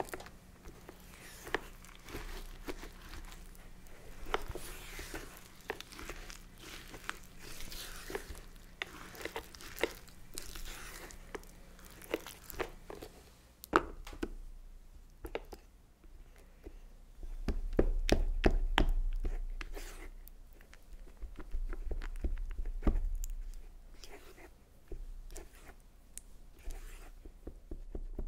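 A spatula stirring and scraping chopped dark chocolate in the small metal pot of an electric chocolate melter, with frequent clicks against the pot's sides over a faint steady hum. About halfway, sticks of butter go in with a sharp click, and the stirring turns into a lower, thicker sound of melted chocolate and butter being mixed.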